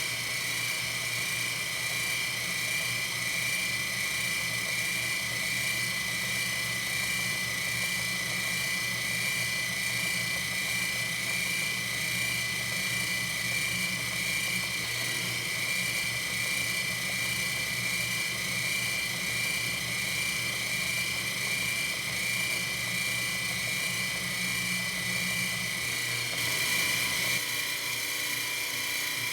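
Metalworking machine tool running steadily while machining a steel part, a continuous high whine over a low hum; the sound shifts about 27 seconds in.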